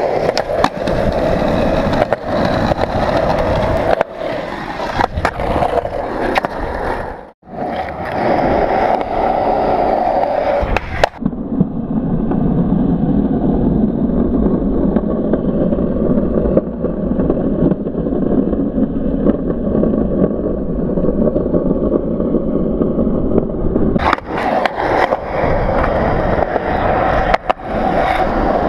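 Skateboard wheels rolling over a concrete skatepark surface, with frequent sharp clacks and knocks of the board. The sound cuts out briefly about seven seconds in, then turns duller for about twelve seconds in the middle before it comes back clear.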